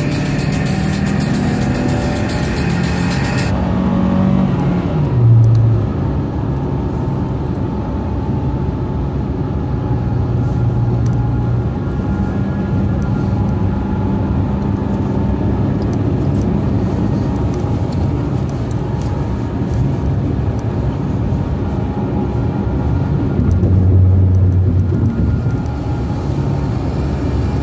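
Steady engine and road noise inside the cabin of a 2006 Honda CR-V cruising at highway speed.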